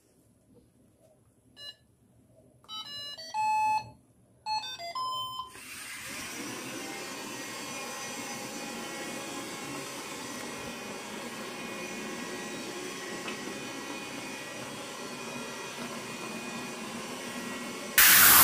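An iRobot floor-cleaning robot plays its electronic start-up beeps, a short beep and then two quick runs of melodic tones, then its vacuum motor and brushes start and run steadily. Loud music cuts in near the end.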